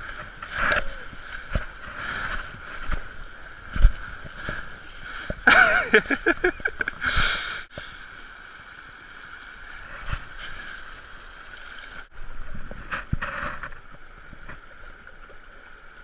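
Fast shallow stream rushing over stones, with scattered thumps and rustles close by; a louder, busier stretch of sound comes about five to seven seconds in.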